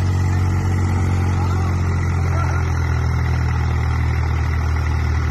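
Swaraj 744 tractor's diesel engine labouring at a steady, deep, unchanging pitch under heavy load as it hauls a loaded soil trolley, the load heavy enough to lift its front wheels.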